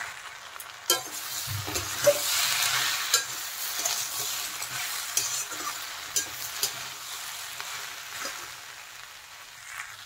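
Greens and vegetables sizzling in a hot kadai while a flat metal spatula stirs them. The spatula scrapes and clicks against the pan every second or so. The water spinach is wilting and releasing water into the oil.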